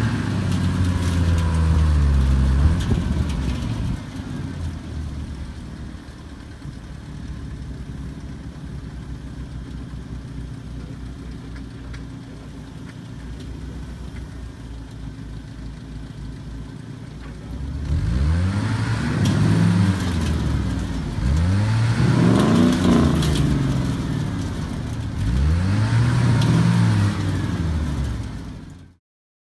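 A truck's engine revs hard again and again, its pitch rising and falling with each burst. Between the loud stretches at the start and about the last ten seconds (some four revs there), it runs more quietly and steadily. It is typical of a vehicle straining to drive out of deep mud.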